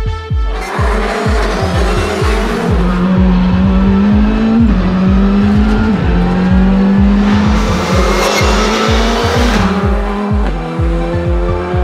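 Rally car engine running hard under load, its pitch climbing and jumping at several gear changes, mixed over an electronic dance track with a steady kick-drum beat.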